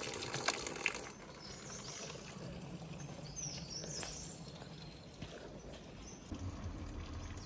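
Cold mountain spring water running and splashing, which stops about a second in. Then small birds chirp, a quick run of rising chirps near the middle, over a low steady hum.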